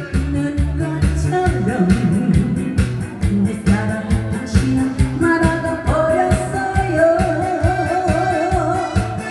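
A woman singing in a thick, throaty voice through a microphone and PA over a backing track with a steady beat, holding long notes with a wavering vibrato in the second half.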